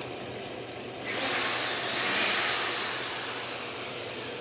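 Electrolux LF75 top-loading washing machine filling with water: a steady rush of water into the tub, with a louder hiss that sets in suddenly about a second in and fades away over the next couple of seconds.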